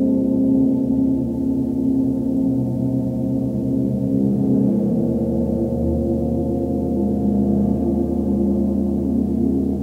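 A 36-inch (90 cm) KI gong humming steadily, a dense low wash of many overlapping tones. It is kept sounding by a small soft-headed mallet worked on its face, and no separate strikes stand out.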